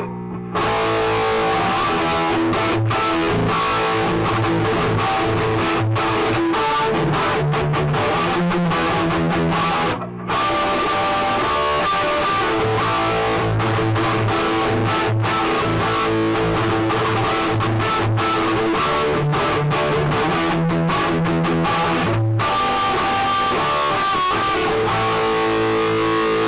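Electric guitar, a Les Paul, played loud and continuously through a 1967 Fender Bassman tube amp set with the volume all the way up and the bright switch on. The playing breaks off briefly about ten seconds in.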